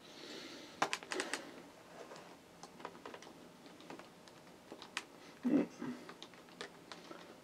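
Computer keyboard keys pressed one at a time in irregular clicks, with a quick run of several presses about a second in, as the BIOS date value is stepped. A short low sound comes just past the middle.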